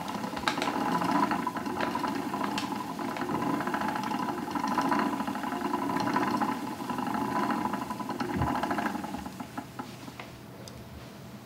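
Wooden treadle spinning wheel turning as wool is spun into yarn: a steady mechanical whir with a rapid light clatter and a few sharper clicks. It dies away about nine seconds in as the wheel comes to rest.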